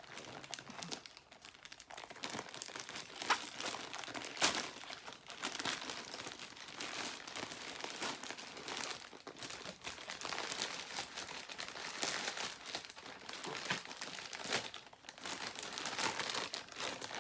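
Crinkling and rustling of parcel packaging being handled and pulled at to open it, with a couple of sharper crackles a few seconds in.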